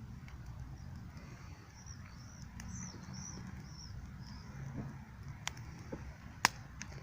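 Wood bonfire crackling with scattered small pops and one sharp, loud crack about six seconds in, over a low steady noise. Faint bird chirps come in about two seconds in.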